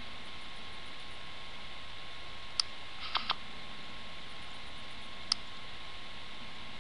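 A few sharp clicks over a steady hiss and a faint steady tone: one click, a quick double click about half a second later, and one more click about two seconds after that.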